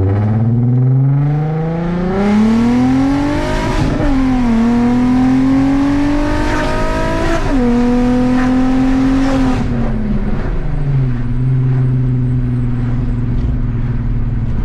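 VW Mk4 GTI's 24-valve VR6, tuned and running downpipes, a cat delete and a straight pipe, pulling hard and loud. The engine note climbs, drops at an upshift about four seconds in, and climbs again to a second shift past halfway. It holds, then falls away around ten seconds in to a steady, lower drone.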